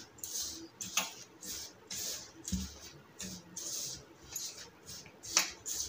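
Hands rubbing and mixing a crumbly flour, butter and egg mixture in a steel bowl: soft scraping rustles about twice a second, with one sharper click near the end.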